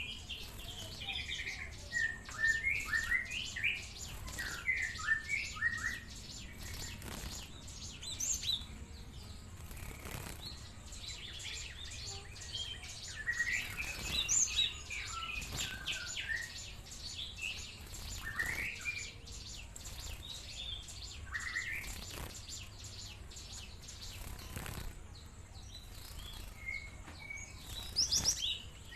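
Young Java sparrow (gelatik) calling actively, in bursts of short chirping notes with pauses between them. A fast, high, steady ticking runs behind.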